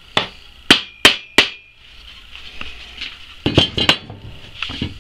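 Rubber mallet tapping a wooden beehive frame to seat its glued joints: four quick sharp strikes with a brief ring in the first second and a half. Lighter knocks and clatter of the frame being handled follow a couple of seconds later.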